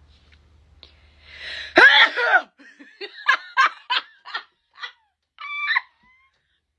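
A person gives a sudden loud vocal burst about two seconds in, after a short breathy build-up, then laughs in a run of short 'ha' bursts.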